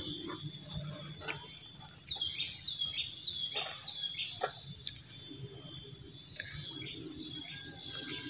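Steady high-pitched insect chorus of crickets trilling in wetland vegetation. About two seconds in, a run of about five quick falling calls, roughly half a second apart, sounds over it.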